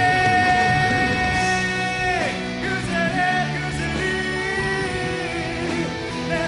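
Live rock band playing, with a long held note at the start that bends down and ends about two seconds in, then more sustained notes over guitar and drums.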